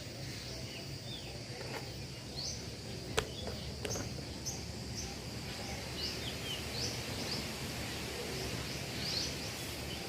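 Outdoor ambience: a steady high insect drone with short bird chirps repeating throughout, and a couple of faint clicks about three and four seconds in.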